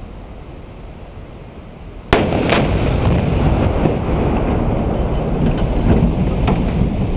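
Explosive demolition charges cutting a steel truss bridge: a rapid string of sharp blasts about two seconds in, then several seconds of loud sustained noise with a few later cracks as the cut span collapses into the creek.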